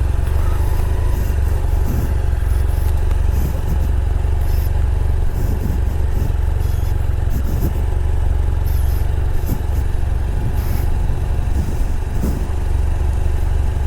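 Motorcycle engine running steadily, a constant low rumble without a break.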